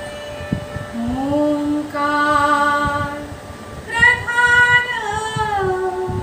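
A woman singing a Marathi devotional song to Ganesha in long held notes that glide between pitches, with a stronger phrase starting about four seconds in.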